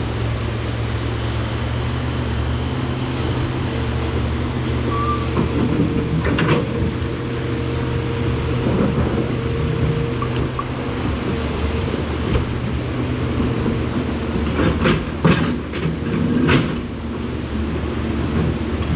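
An excavator's diesel engine running steadily, with a few sharp clanks and knocks about six seconds in and again a cluster near the end.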